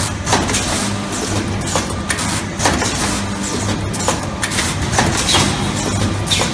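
Automatic steel-wire hook-row ball-head welding machine running: a steady hum under irregular sharp clanks and clicks from its moving steel parts and wires, about two a second.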